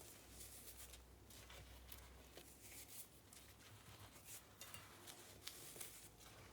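Baking soda and cornstarch powder being pressed, squeaking and crunching in an irregular run of short, crisp crackles.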